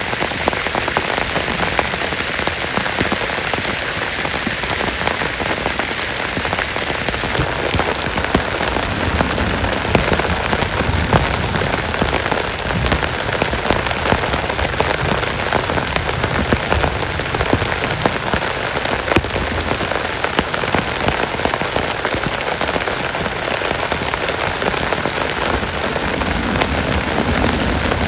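Heavy rain falling steadily, a dense patter of drops striking a surface.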